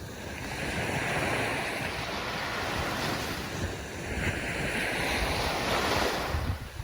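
Ocean surf: waves breaking and washing up the shore in two swells, the second dying away near the end.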